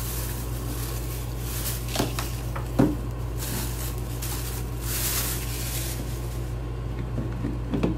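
Clear plastic bag crinkling and rustling as the facial steamer's plastic parts are unwrapped and handled, with a few sharp knocks of hard plastic, the loudest about three seconds in. A steady low hum runs underneath.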